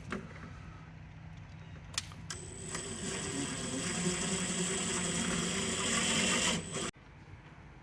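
A motor-driven machine running steadily with a thin high whine, growing louder over a few seconds and then cut off abruptly.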